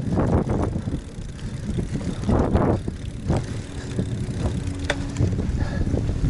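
GT Avalanche mountain bike ridden over a bumpy dirt singletrack: a steady rumble of tyres and frame, with bursts of rattling over bumps and a sharp click about five seconds in. Wind buffets the microphone.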